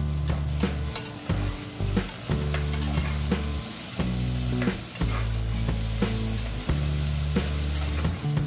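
Sliced onions sizzling in hot oil in an aluminium pressure cooker as they are stirred, with repeated short scrapes and clicks of the stirring against the pot.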